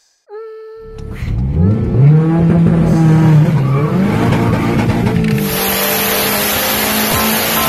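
Mitsubishi Galant VR-4's turbocharged four-cylinder, tuned on E85 with a Precision turbo, revving hard, its pitch climbing and dropping several times. From about five seconds in it holds a steady high note under a loud rushing noise.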